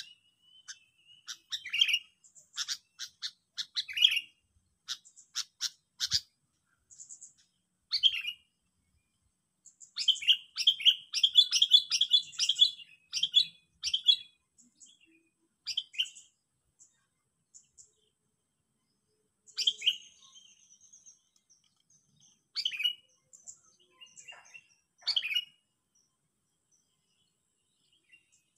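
Sooty-headed bulbul (kutilang) calling as a decoy bird: a string of sharp high chirps and short call phrases, with a dense run of quick chattering calls about a third of the way in, then scattered calls between pauses.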